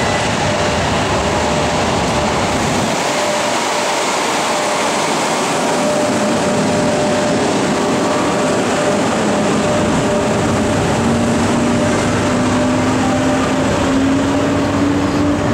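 EP1M electric locomotive pulling a passenger train away and drawing past, with a steady hum from its equipment over the noise of the train rolling by. Near the end a whine rises slowly in pitch as the train gathers speed.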